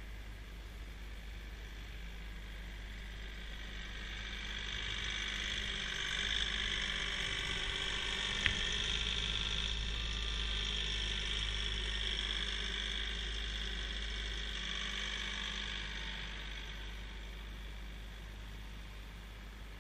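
Kioti CK3510 compact tractor's three-cylinder diesel engine working under load while pushing snow. It grows louder as the tractor comes in close and fades as it backs away, with a single sharp knock near the middle.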